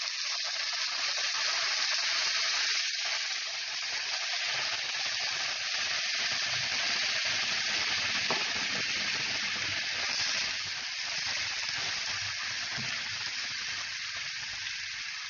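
Coconut milk sizzling and bubbling in a hot frying pan around browned, floured chicken pieces over medium-high heat: a steady hiss.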